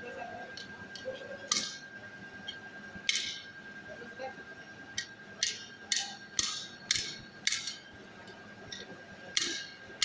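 Hammer blows on metal on a blacksmith's anvil: sharp, ringing strikes, spaced a second or more apart at first, then about two a second in the middle, with a steady high-pitched hum underneath.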